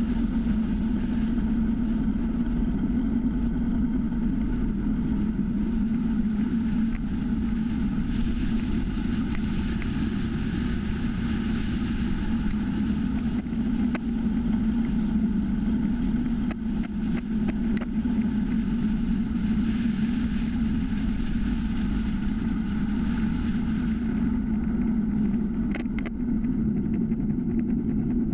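Steady wind rush and tyre rumble from a time-trial bicycle riding at speed on asphalt, heard through a bike-mounted GoPro Hero3 with wind buffeting its microphone. A few light ticks come through about halfway, and a short sharper sound comes near the end.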